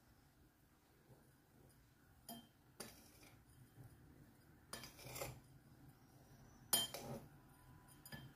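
A spoon stirring a dry mix of ground pistachios, sugar and cinnamon in a glass mixing bowl, scraping and clinking against the glass in several short bursts after a couple of quiet seconds, the loudest about two-thirds of the way through.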